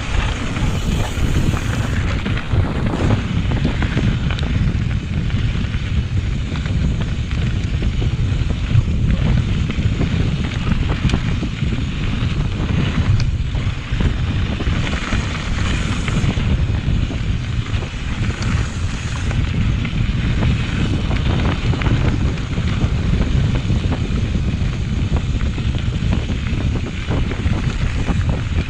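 Steady wind noise buffeting the microphone of a camera on a mountain bike's handlebars during a fast downhill ride, mixed with rumble from the bike rolling over a dirt trail.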